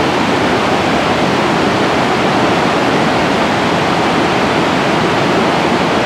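Victoria Falls in the dry season: the steady, even rush of water plunging into its gorge.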